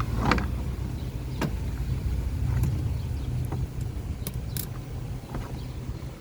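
Car engine idling steadily, with a few sharp clicks over it.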